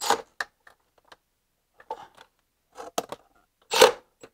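Socket wrench being fitted and worked on the 13 mm nut of an alternator's power-cable terminal: a few scattered clicks and knocks, with a louder knock near the end.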